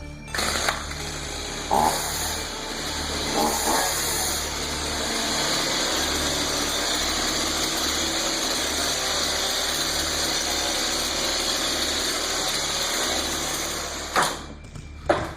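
Chainsaw engine running steadily for about fourteen seconds, then cutting off, with a couple of knocks while it runs and two sharp knocks near the end.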